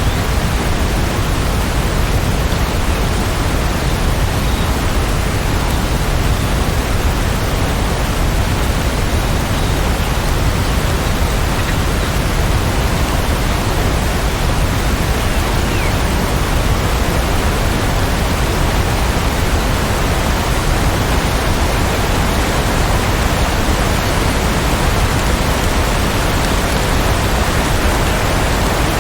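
Steady rain, an even unbroken hiss with no thunderclap.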